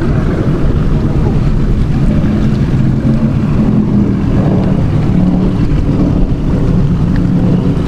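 Offshore racing catamaran's engines running at high speed in a steady low drone, with wind buffeting the microphone.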